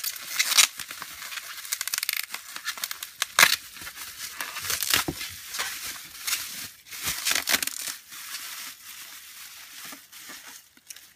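Plastic bubble wrap crinkling and crackling as a doll is unwrapped from it by hand, in irregular bursts of rustle with sharp crackles, the loudest about half a second and three and a half seconds in.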